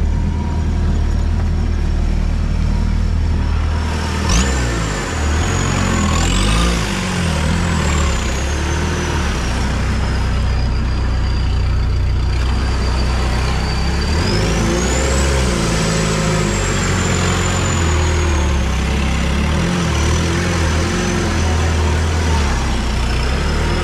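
Off-road 4x4's engine running under load, its pitch rising and falling as it is worked over rough ground, with a thin high whine rising and falling alongside. A single sharp knock about four seconds in.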